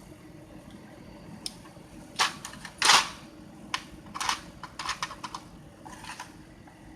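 Irregular sharp clicks and knocks of a mini hand saw's plastic and metal parts being handled, about a dozen in all, the loudest about three seconds in.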